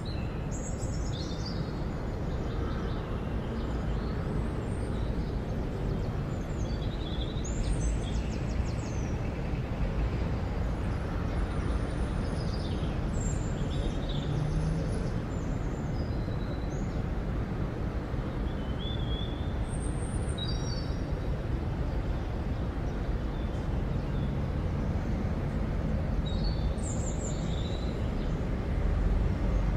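Outdoor town ambience: a steady low rumble of traffic, with birds chirping now and then.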